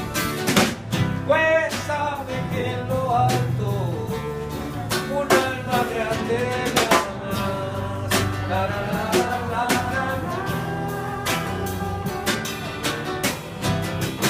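Live band playing: drum kit hits and guitars, with a lead line that bends in pitch, heard through a phone's microphone.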